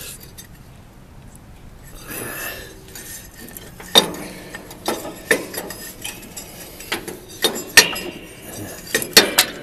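Sharp metallic clinks and knocks, about eight of them scattered through the second half, with a soft rustle about two seconds in: a rusty lawn tractor belt pulley being handled and worked out past the steel chassis.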